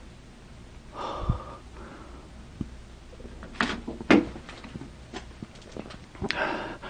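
A person breathing audibly in a quiet room, with a few scattered knocks and clicks. The loudest knocks come at about 1, 2.5 and 4 seconds in.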